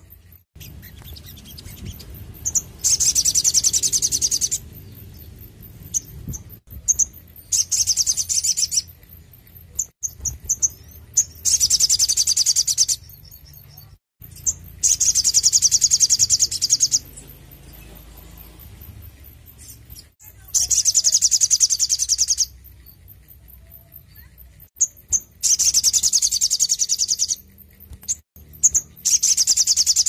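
Male olive-backed sunbird (sogon) singing: loud, high, rapid trills of about one and a half to two seconds, repeated every few seconds, with short sharp chirps in between.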